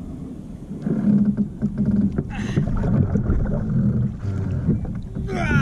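Water splashing and sloshing with knocks against a plastic kayak hull as a catfish is grabbed at the side and hauled aboard by hand. A louder splash comes about two and a half seconds in, and a short falling squeal near the end.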